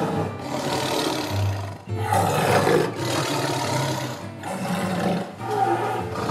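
Tiger roaring and growling in a series of rough calls, about six, each lasting roughly a second with brief breaks between.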